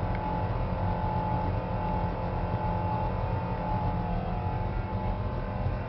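1975 Dodge truck's big-block V8 engine running steadily, a low rumble heard from inside the cab, with a thin steady whine over it.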